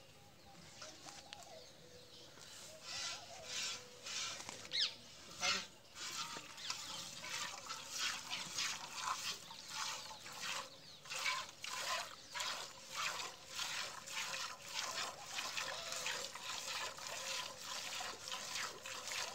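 Cow being milked by hand into a steel bucket: jets of milk squirting into the pail in a steady rhythm of about two squirts a second, starting faintly a few seconds in and growing stronger.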